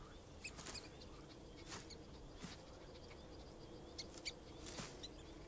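Rat moving through dry grass: a few faint rustles and short high squeaks over a low steady hum.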